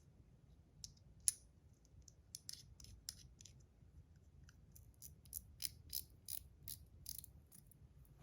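Small metal objects being handled and set down: a series of light, sharp clicks, one louder click a little over a second in and a quicker run of about three clicks a second in the second half.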